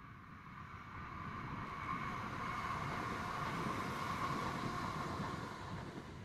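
Royal Mail Class 325 electric multiple unit passing on the line, its running noise swelling to a peak midway and fading as it goes by, with wind on the microphone.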